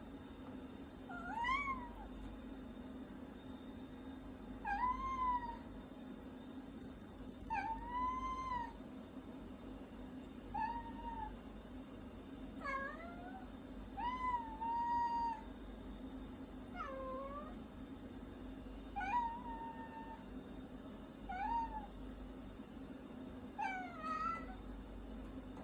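Domestic cat meowing repeatedly, about ten separate meows each rising then falling in pitch, spaced two to three seconds apart.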